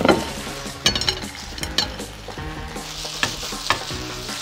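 Pak choy sautéing in soy sauce in a frying pan, sizzling steadily as a spatula stirs it, with a few short scrapes and clicks of the spatula against the pan.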